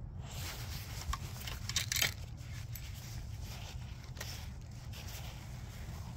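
Close handling noise of hands working a fishing rod, spinning reel and line: scratchy rustling and scraping with a few sharp clicks about two seconds in, over a steady low rumble.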